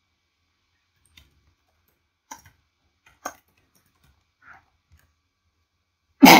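Computer keyboard keys clicking a few times, faint and spaced out, as a line of code is typed. Right at the end comes a sudden loud burst.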